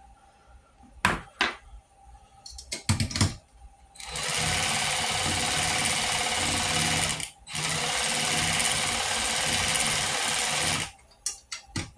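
A 3/8-inch drive cordless ratchet running in two steady runs of about three seconds each with a short break between, tightening a nut. A few clicks and knocks of handling the tool and parts come before and after.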